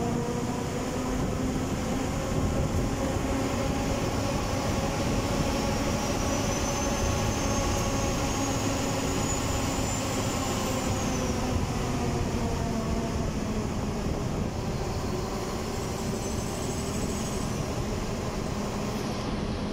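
Engine and road noise of a moving vehicle, heard from on board: a steady engine hum whose pitch drifts a little, with a faint high whine that rises slowly through the middle and then drops away.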